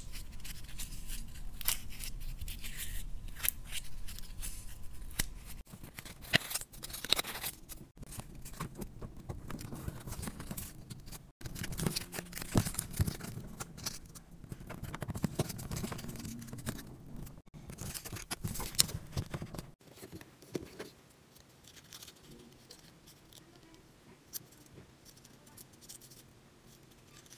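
Sheet of printer paper being folded and creased by hand, with crisp crinkles and clicks of the paper. The handling goes much fainter about twenty seconds in.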